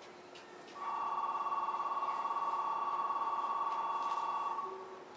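A steady two-note electronic tone starts about a second in, holds for almost four seconds and then fades out.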